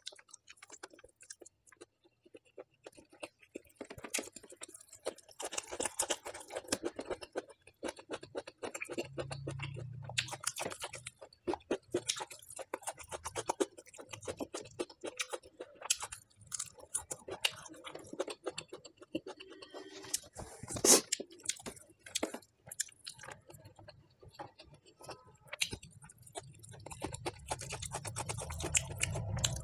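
Close-miked chewing and wet mouth smacks of a person eating a mouthful of rice and side dishes, in many small irregular clicks, with one louder click about two-thirds of the way through.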